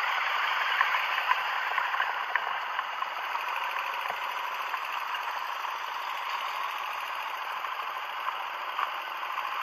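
Dirt bikes idling and rolling up on gravel, heard as a steady rattling hiss with a few light clicks through a camera mounted low on a parked motorcycle.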